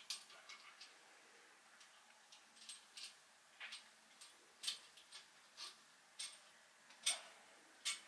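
Light, irregular clicks and taps, about one or two a second, as a screwdriver and parts are worked inside a porcelain toilet tank.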